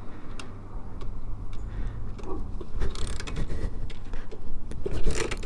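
Kickstarting a 50cc pit bike: several kicks, each with a short mechanical clatter from the kickstarter as the engine turns over without catching.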